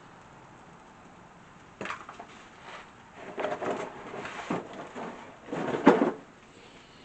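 Irregular knocks, scrapes and clatter starting about two seconds in, with the loudest knock near the end.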